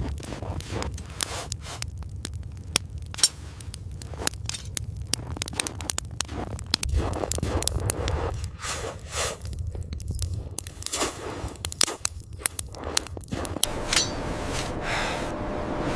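Irregular sharp clicks and scraping knocks over a low rumble, coming thickest through the middle and thinning out near the end.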